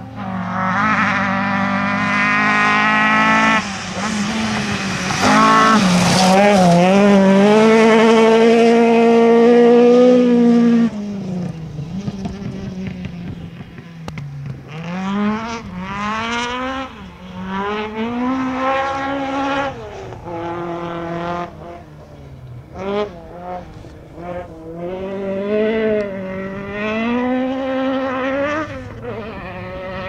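Historic rally car engines at full throttle on a gravel stage. The first car revs hard through a gear change and holds high revs before dropping away about eleven seconds in. Later a car's engine rises and falls over and over through gear changes and lifts.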